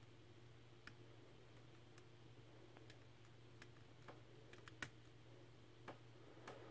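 Faint, irregular clicks of a gem pick and tension wrench working the pins in a Medeco biaxial padlock's keyway, about ten scattered ticks with the loudest a little under five seconds in, over a low steady hum.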